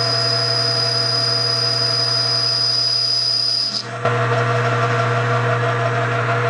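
Metal lathe running steadily, its cutting tool turning down a spinning metal shaft, with a steady low hum and a high whine that cuts off a little over halfway through after a brief dip in the sound.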